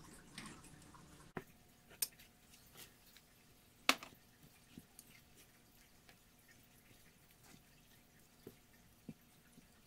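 Faint, scattered clicks and soft squishes of a spatula folding pecans and chocolate chips through thick muffin batter in a bowl, with one sharper knock about four seconds in.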